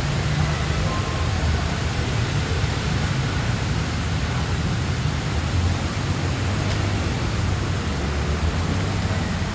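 Steady low rumble with an even hiss over it: outdoor background noise with no distinct events.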